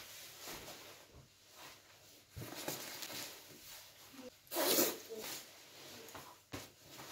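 Rustling and swishing of a padded winter jacket being unzipped and pulled off, with a louder burst of rustling about four and a half seconds in.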